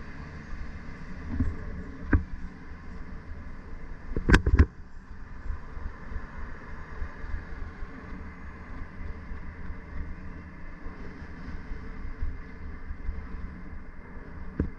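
City traffic and road noise heard from a moving bicycle, a steady low rumble. A sharp knock comes about two seconds in, and a loud double thump about four seconds in.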